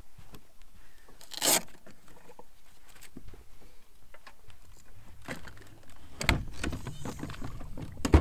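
Scattered knocks, clicks and a short rustle from someone moving about on a bass boat's carpeted bow deck, with a louder thud about six seconds in.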